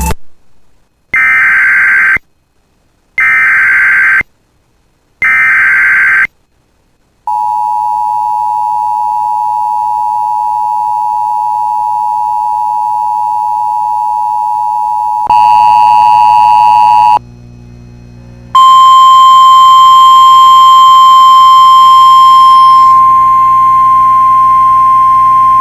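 Emergency Alert System tones. Three short screechy data bursts, the SAME header, here coded as a flash flood watch, are followed by the steady two-tone attention signal for about eight seconds. After a brief jumble of mixed tones and a short gap, a single loud steady alert tone starts.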